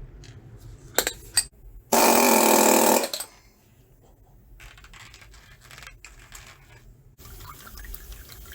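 A couple of sharp clicks as the tool is handled, then a pneumatic air hammer runs free for about a second in one loud rapid-fire burst before stopping.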